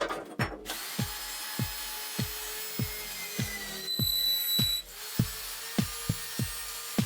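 A power tool running and working material, over background music with a steady electronic beat. The tool starts under a second in and gets louder and higher for just under a second about four seconds in.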